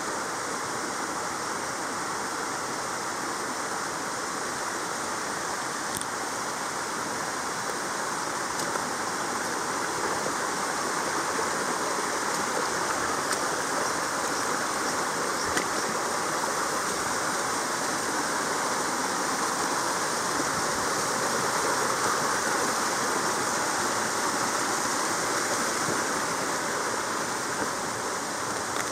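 Flowing water of a mountain stream rushing steadily.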